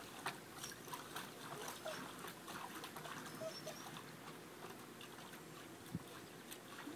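Faint small splashes, drips and ticks of pool water around a golden retriever fetching a football, with one dull thump about six seconds in.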